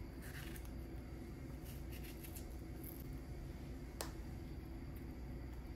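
Kitchen knife cutting through melon held in the hand: a few soft, short slicing scrapes, then a single sharp click about four seconds in, over a faint steady hum.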